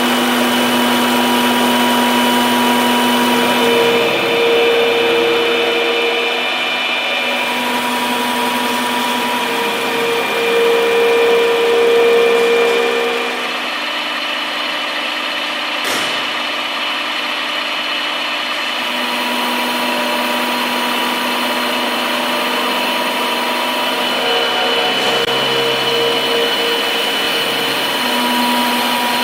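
Knuth UWF 4 universal milling machine running with a steady mechanical whine whose pitch changes every few seconds. There is one sharp click partway through.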